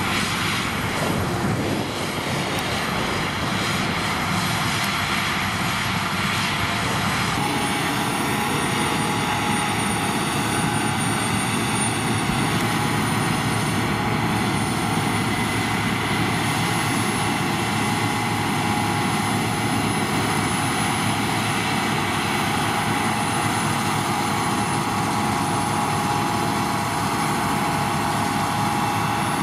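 Claas Lexion 670 combine harvester working in spring oats: its engine and threshing machinery running steadily under load. About seven seconds in, the sound shifts abruptly to a closer, steadier machine noise with a high whine in it.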